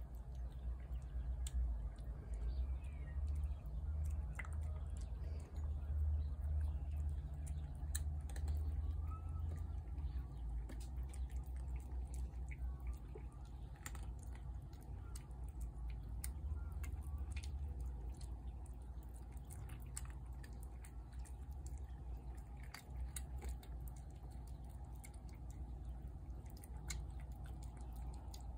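Cats eating from plates, with many small scattered chewing clicks, over a steady low rumble that is louder in the first half.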